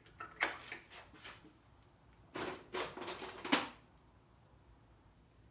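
A scattering of short clicks and knocks from hands handling an Echo leaf blower, with a busier patch of clatter around the middle.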